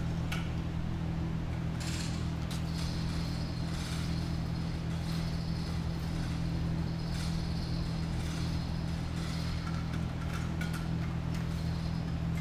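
A steady low hum runs throughout, with a few faint light clicks and rustles as the anchor light's wiring is handled at the Power Pole.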